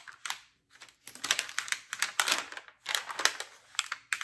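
Thick clear plastic cover on a diamond painting canvas crinkling and crackling as hands peel it back and press it flat, in irregular clusters of crackles with short pauses between.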